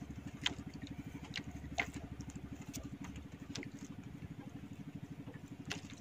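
Small engine on the boat running steadily with a fast, even chugging. About a dozen sharp light clicks and taps are scattered over it.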